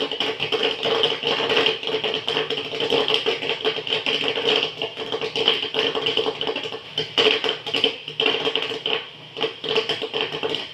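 Popcorn popping in a 12-volt popcorn machine's kettle: a dense, irregular run of sharp pops over a steady hum.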